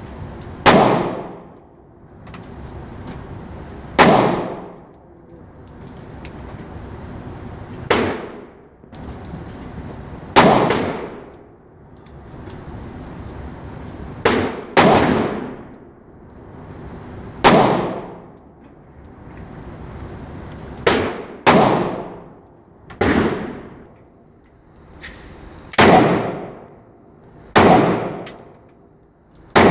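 Smith & Wesson M&P 9C 9mm pistol fired in slow single shots, about a dozen, one to four seconds apart, each crack followed by a ringing tail. A steady hiss lies under the shots.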